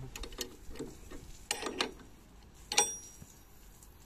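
A few scattered metallic clicks and clinks of hand tools and parts on a VW Kombi engine during belt adjustment; the loudest clink, near three seconds in, rings briefly.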